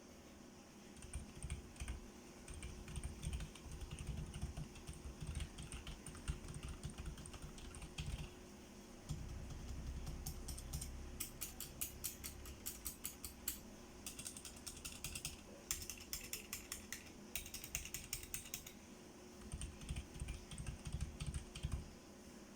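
Typing on a Tecware Phantom TKL mechanical keyboard fitted with PBT keycaps and lubed Outemu Gray switches: a continuous run of keystroke clacks, with faster, evenly spaced runs of keypresses in the middle.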